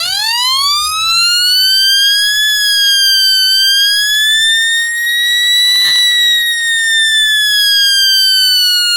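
Wailing siren tone from a homemade two-transistor (TIP42 and BC548) oscillator siren playing through a loudspeaker. It climbs steeply in pitch over the first couple of seconds, wavers, peaks around six seconds in and then slowly falls.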